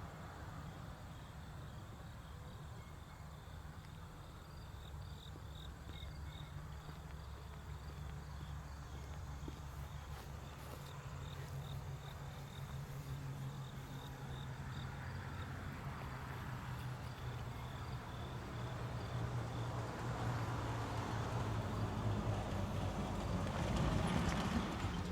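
Federal Signal STH-10 siren coasting down at very low speed, a low steady hum, with crickets chirping. A car approaches and grows louder near the end.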